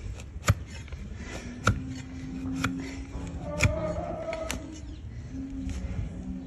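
A wide flat steel hoof-trimming blade pared down through a donkey's hoof horn, giving about five crisp cutting cracks roughly a second apart. A low steady hum runs underneath.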